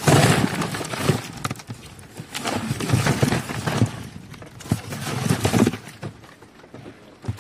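Live tilapia flapping and slapping against one another and the sides of a plastic tub, in three rapid bursts of wet knocks and thuds with short pauses between, settling down near the end.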